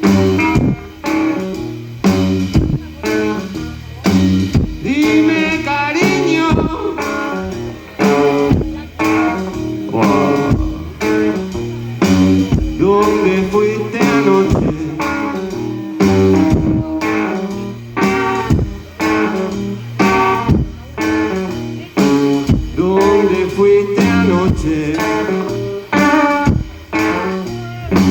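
Live band playing blues-style music led by guitar, with bass and a steady beat.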